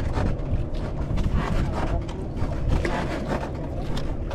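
Wind buffeting the microphone in a small open boat, a heavy low rumble, with a faint steady hum underneath and scattered light clicks and knocks.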